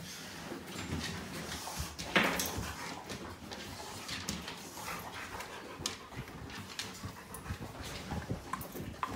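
Rottweiler puppy panting and scuffling on a wooden floor, rubbing against a curtain, with many small taps and rustles. One louder thump comes about two seconds in.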